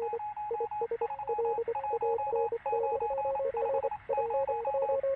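Morse code beeping from wireless telegraphy: short and long tone pulses keyed on and off rapidly, in two or three overlapping pitches like several signals at once.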